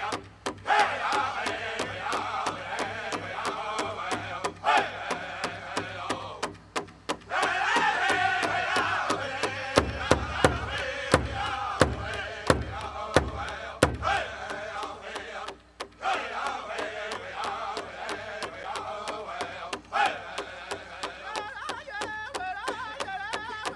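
Powwow drum group singing a chicken dance song: men's voices chanting together over a big drum struck in a steady beat, with a run of much heavier, louder beats near the middle.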